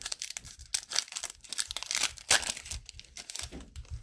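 Cellophane wrapper of a football trading card pack being torn open and crinkled: a dense, irregular run of crackles.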